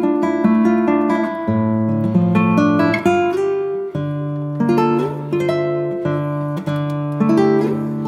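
Background music: an acoustic guitar picking chords, single notes plucked one after another as the harmony changes every second or so.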